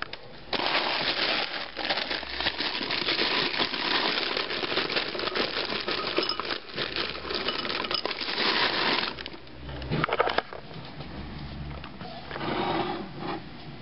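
Garrett Chicago Mix caramel and cheese popcorn poured from a plastic bag into a ceramic bowl. The pieces rattle into the bowl while the bag crinkles, a dense crackling for about nine seconds, then a few fainter rustles and clicks.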